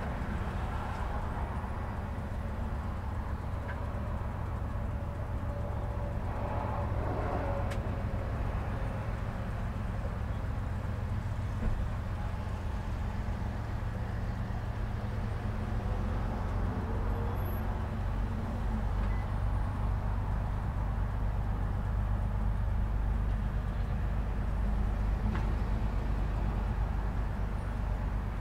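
Road traffic at a busy intersection: a steady low rumble of vehicle engines and tyres, swelling louder for a couple of seconds about seven seconds in.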